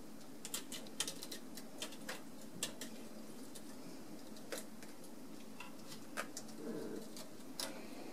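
Scattered small sharp clicks and taps from cats and kittens at play on the carpet, the scratching post and a feather toy, over a steady low hum. A brief low sound comes just before the end.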